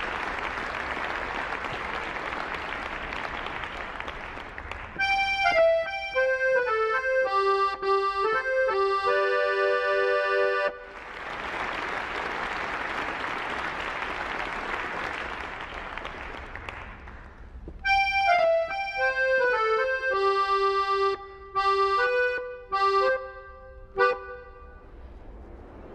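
Short music phrase with an accordion-like sound: a run of falling notes that settles onto a repeated low note, played twice. Between the phrases, and before the first, there is a steady noisy wash like applause.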